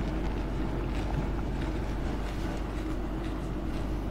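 A steady low electrical hum with a constant background hiss, with only faint mouth sounds of a pani puri being chewed over it.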